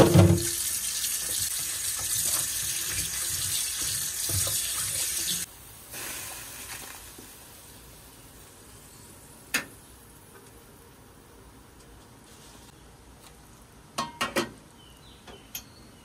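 Kitchen tap running into a stainless steel sink over a wooden cutting board as raw chicken bones are rinsed, with a sharp knock at the start. The running water cuts off suddenly about five seconds in. After that it is much quieter, with a faint boiling pot of broth and a few sharp clicks later on.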